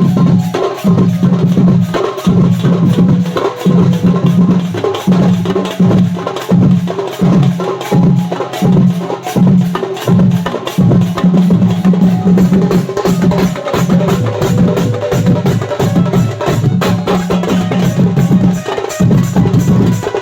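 Loud band-party music with a driving, regular drum and percussion beat over sustained melody tones.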